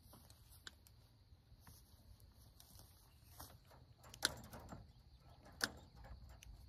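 Welded-wire fence panel being handled against steel T-posts: two sharp metal clicks, about four and five and a half seconds in, over a faint low rumble.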